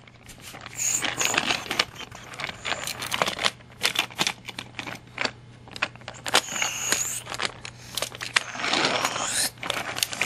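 Small toy trains and coaches clicking and clattering against each other and on plastic track pieces as they are picked up, set down and coupled, with short rolling rattles of wheels on the track.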